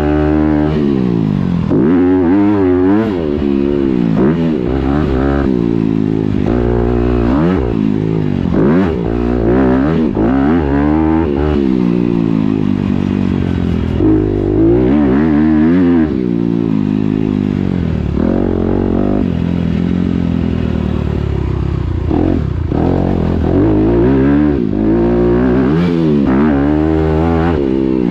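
Dirt bike engine on the track, revving up and dropping back again and again as the throttle is opened and shut through jumps and turns, its pitch rising and falling every second or two.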